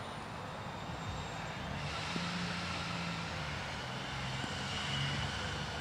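A steady engine drone, growing a little louder and brighter about two seconds in.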